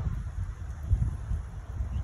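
Wind buffeting the microphone in uneven gusts, over the faint steady splashing of a small floating fountain head spraying water into a plastic bowl.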